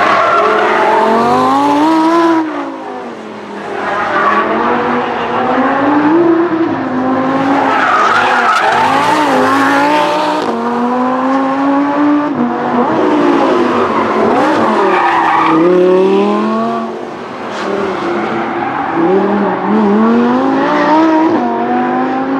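Lamborghini Huracán LP610-4's mid-mounted V10 engine revving hard on track, its pitch climbing and dropping again and again through gear changes. Tyres squeal and skid at times during powerslides, and the sound dips briefly twice.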